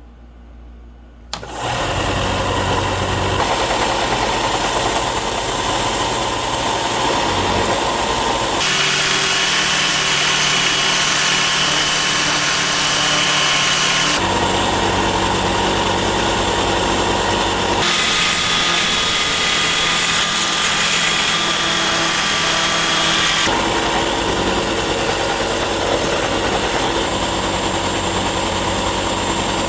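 A power tool starts about a second and a half in and runs loud and steady, with a hiss reaching into the high range. Its tone shifts abruptly several times, as from cuts between takes, which fits stripping rust from a metal plate.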